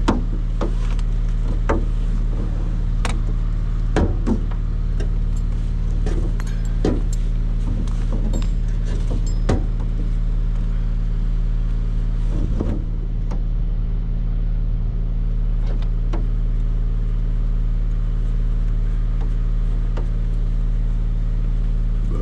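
An engine running steadily at an even speed, with scattered knocks and clanks over roughly the first ten seconds that thin out after.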